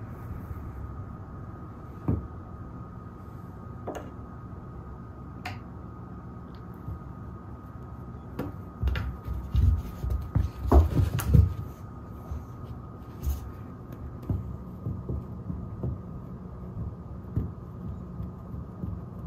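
Soft thumps and scuffling of a cat pouncing and scrabbling on a rug at a wand toy, heaviest about nine to eleven seconds in, with a few scattered light taps and a faint steady hum throughout.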